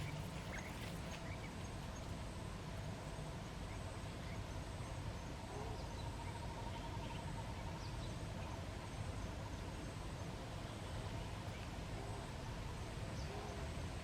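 Outdoor ambience: a steady low rumble and hiss with faint, scattered bird chirps.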